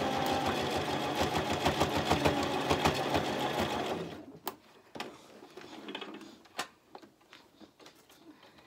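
Toyota domestic sewing machine running a triple stitch through fabric and strap: a fast, even rhythm of needle strokes that stops suddenly about four seconds in. A few light clicks follow as the work is handled.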